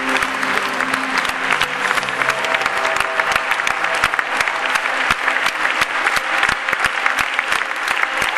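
Audience applauding with dense, steady clapping, with music playing underneath.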